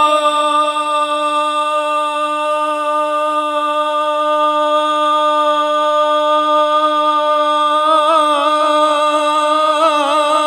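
A man's voice singing a naat unaccompanied through a microphone, holding one long steady note. About eight seconds in, the note breaks into wavering ornaments.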